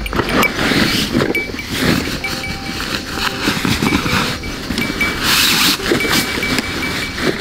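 Nylon stuff sacks and backpack fabric rustling and scraping as gear is pulled out of a pack, in irregular bursts. A thin high tone keeps breaking in and out in short pulses behind it.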